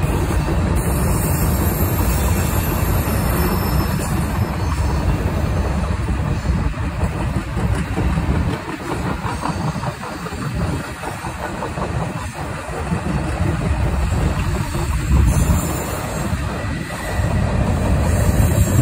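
Freight train of covered hopper cars rolling past, its wheels running on the rails in a steady low rumble. The rumble eases off partway through and swells again near the end.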